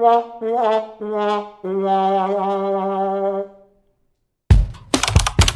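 Sad-trombone comedy sting: four brass notes stepping down in pitch, the last one held for about two seconds. After a short pause, near the end, a rhythmic music track with sharp strummed hits starts.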